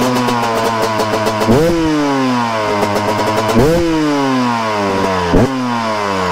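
Carbureted TM SMR 300 two-stroke single-cylinder supermoto engine through its stock HGS exhaust, blipped three times: each rev jumps up sharply and then falls away slowly back toward idle.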